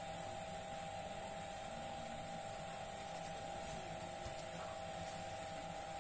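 A steady hum with two even tones and a constant hiss underneath, unchanging throughout, with no distinct knocks or rubbing.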